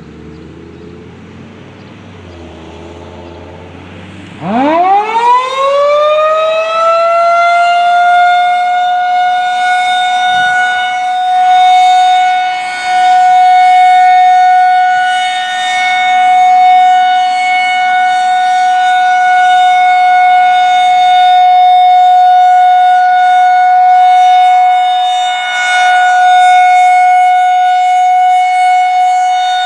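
A Federal Signal 2001-130 outdoor warning siren winds up about four seconds in, sweeping quickly from a low growl to a high steady tone. It then holds that tone, its loudness swelling and dipping slightly as the rotating siren turns.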